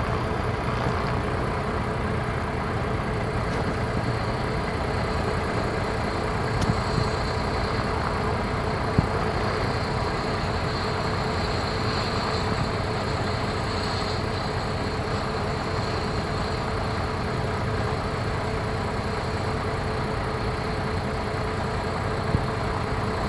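Landed medical helicopter running on the ground, a steady engine noise with a faint high whine over it.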